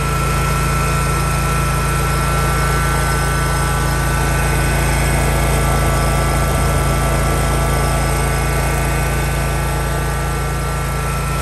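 Kawasaki FH721V air-cooled V-twin engine on a zero-turn mower running steadily and evenly while the machine stands still, just restarted on its cleaned and refitted original carburetor.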